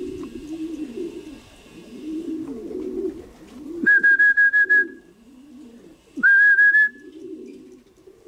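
Racing pigeons cooing continuously at the loft. Twice a loud, high whistle-like tone cuts in: the first is held for about a second with a slight warble, and the second, a little later, rises and is shorter.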